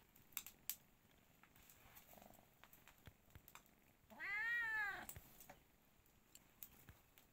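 A kitten meows once, a single drawn-out meow about a second long that rises and then falls in pitch. Scattered light clicks and crackles from a wood fire sit beneath it, two sharper ones near the start.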